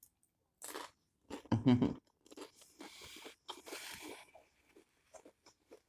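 Close-up crunching and chewing of a nacho: a crisp tortilla chip loaded with ground turkey, eaten in irregular crunches for a few seconds.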